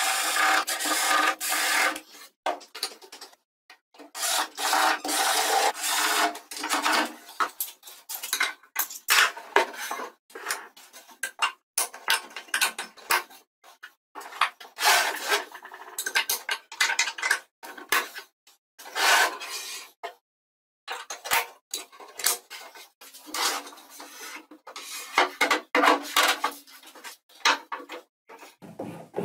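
Repeated bursts of rubbing and scraping on plywood, each about a second long, broken by short silent gaps.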